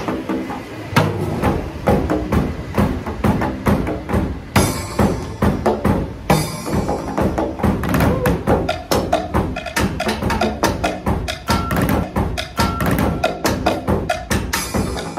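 Percussion duo drumming with sticks and paddles on plastic barrels, a plastic IBC tank and PVC drain pipes: a dense, fast rhythm of hollow knocks and thuds, with two short hissing washes around the middle.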